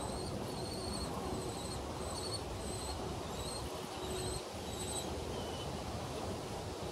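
Young common kestrels calling from the nest box: a long series of short, high calls, about two a second, over a steady low rustle.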